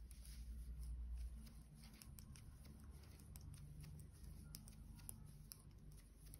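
Faint, irregular clicking of knitting needles as stitches are worked, over a low steady hum.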